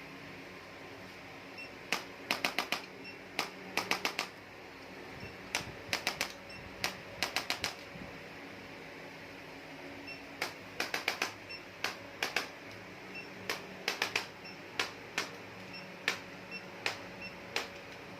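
Quick runs of sharp slaps or taps, three to six in fast succession, repeating every second or two over a faint steady room hum, as from percussive hand strikes on the body during a Kalari massage and adjustment treatment.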